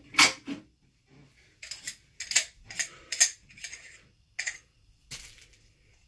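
Sharp metal clinks and rattles, a loud one near the start and then about seven more in quick succession, from a SaberForge lightsaber hilt being handled and opened to fit its battery.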